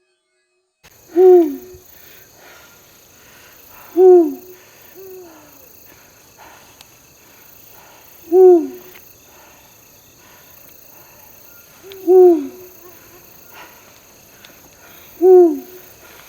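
Eurasian eagle owl hooting: five deep single hoots spaced three to four seconds apart, each dipping in pitch at its end, with a softer hoot shortly after the second.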